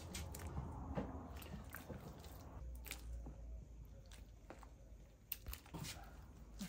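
Faint, irregular light clicks and taps over a low steady hum.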